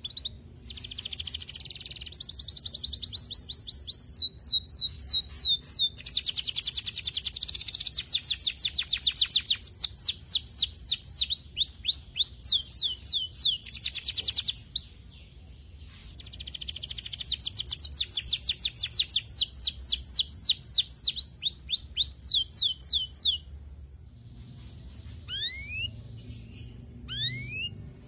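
Domestic canary singing: two long phrases of fast-repeated whistled notes, runs of quick falling trills, with a short break between them, then a few single falling chirps near the end.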